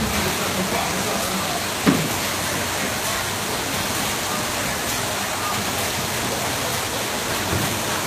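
Steady machine noise of a brewery's bottle packaging line, with a single sharp knock about two seconds in.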